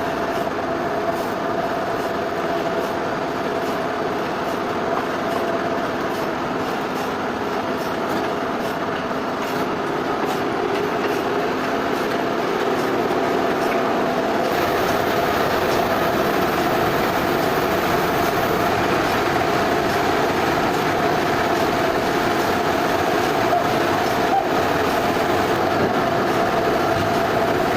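Sawmill machinery running steadily: a continuous mechanical drone with a steady humming tone through it, growing a little louder about halfway through.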